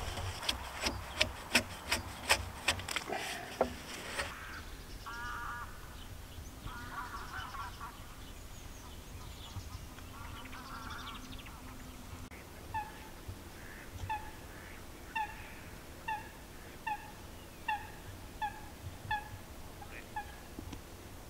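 A debarking tool works bark off a robinia log in quick, sharp strokes, two or three a second, that stop about four seconds in. Geese honk in the background after that: scattered calls at first, then a steady run of single honks about one a second.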